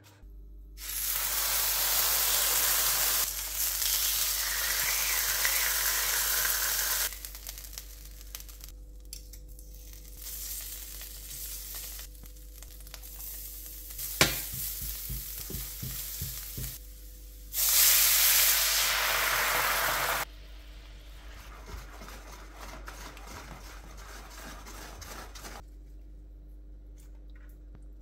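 Food sizzling in a frying pan, loud in two long stretches with quieter frying and stirring between, and one sharp knock about halfway through.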